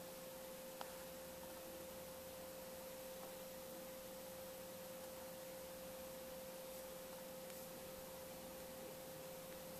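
A faint, steady single-pitch tone a little above 500 Hz over a low hiss, unchanging throughout, with one small click about a second in.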